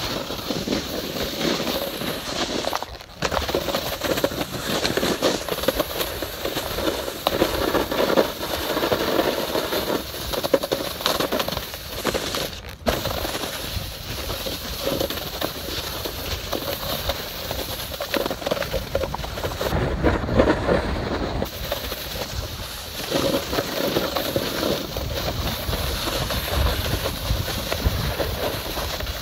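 Snowboard sliding and carving over snow: a continuous scraping rush, cutting out briefly twice, with wind rumbling on the microphone at times.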